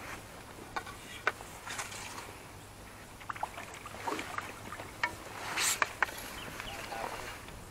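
Water splashing as a small hooked carp is drawn in and landed in a landing net: scattered small splashes and light clicks, with the biggest splash a little past halfway.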